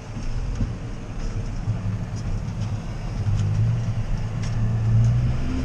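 John Deere 6R tractor's diesel engine running steadily under ploughing load, growing louder about three seconds in.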